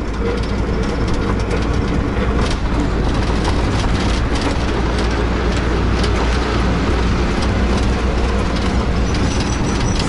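Auto-rickshaw ride heard from inside: a steady low engine rumble with road noise and light rattles.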